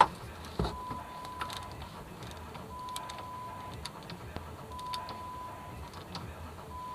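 Scattered light metallic clicks of a spanner and socket working a rear brake caliper's guide-pin bolt. A steady high tone lasts about a second and repeats four times, about every two seconds.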